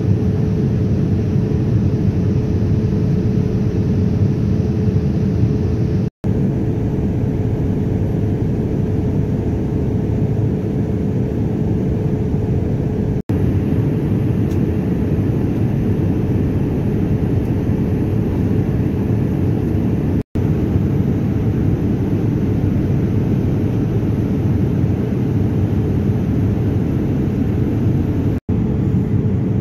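Jet airliner cabin noise in cruise: a steady low rumble of engines and airflow with a faint constant hum. It breaks off for an instant four times, about every seven seconds.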